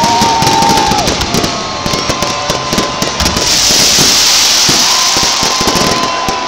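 A stadium fireworks finale: rapid crackling and bursting of many shells, with long whistling tones that hold and then drop in pitch. About halfway through, a loud hissing rush comes in as ground fountain and flame effects fire.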